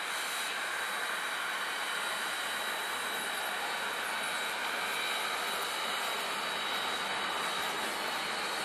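Steam locomotive rolling slowly past with a steady hiss and a thin high whine, without exhaust beats.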